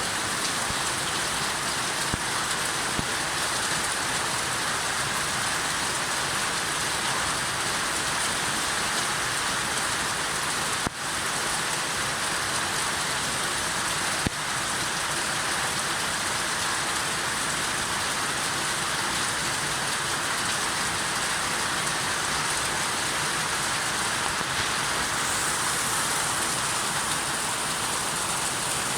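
Steady rain falling, an even hiss with no change in strength, with two brief clicks about eleven and fourteen seconds in.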